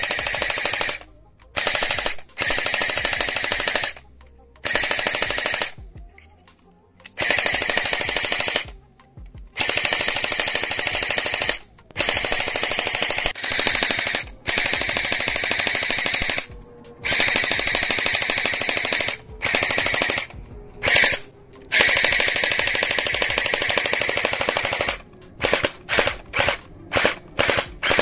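Battery-powered toy blaster firing full-auto: a rapid, steady clatter of shots in bursts of one to four seconds with short pauses between, then a string of quick short bursts near the end.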